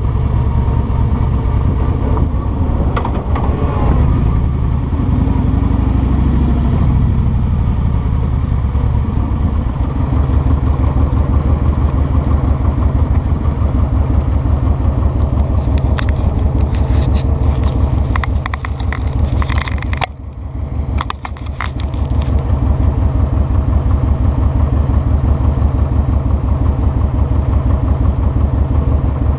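Kawasaki Vulcan 2000's 2-litre V-twin engine running as the bike slows, then settling into a slow, even idle beat about ten seconds in. A few clicks and a brief drop in the engine sound come about two-thirds of the way through.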